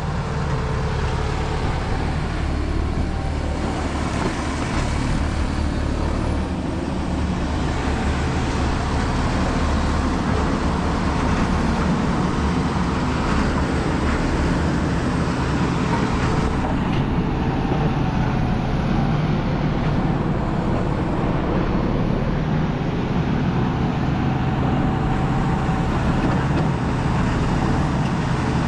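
Engine of a piece of heavy equipment running steadily.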